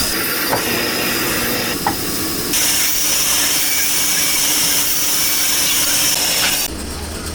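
Loud, steady hissing of a woodworking machine cutting or sanding wood, with a couple of faint clicks. It turns brighter about two and a half seconds in and drops off suddenly near the end.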